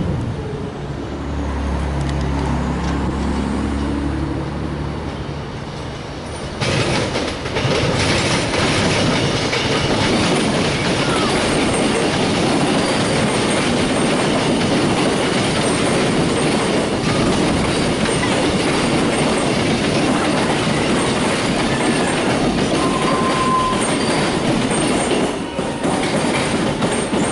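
Electric suburban train passing close by. Its wheels run loud on the rails with clickety-clack from about seven seconds in, and the noise drops away near the end. A low hum comes before it.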